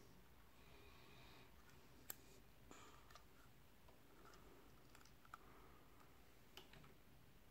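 Faint handling noise of a small black plastic device case being turned over in the hands: a few light clicks and taps with brief rustling, the sharpest click about two seconds in.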